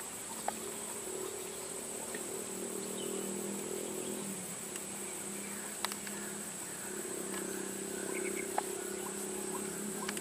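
Steady high-pitched chorus of crickets and other insects, with a low droning hum that fades out midway and comes back, and a few sharp clicks.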